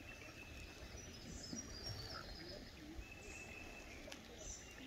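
Faint birdsong over a low, steady outdoor background. A thin, high whistled note is held for about half a second, once near the start and again about three seconds in, with scattered short, higher chirps between.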